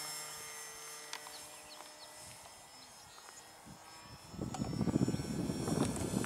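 Electric motor and propeller of a foam-board FT Simple Scout RC plane in flight, a steady high whine that fades as the plane moves off. About four seconds in, a louder ragged low rushing noise sets in.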